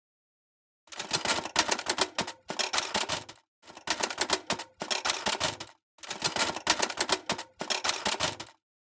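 Typewriter key clacks in several quick runs of strokes, each run stopping dead into total silence, like an edited typing sound effect.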